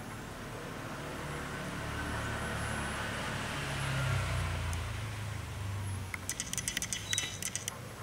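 A motor vehicle passing by outdoors: a low engine hum that swells to a peak about halfway and fades away. Near the end comes a quick run of sharp clicks and rattles lasting about a second and a half.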